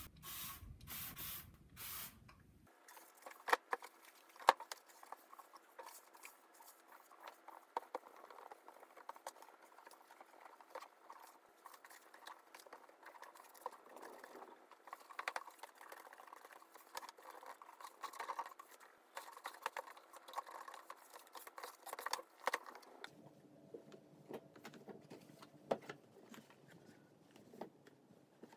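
A trigger spray bottle squirting four times in quick succession. Then faint rubbing and scattered light knocks as the plastic cage floor is wiped down, with two sharper knocks about four seconds in.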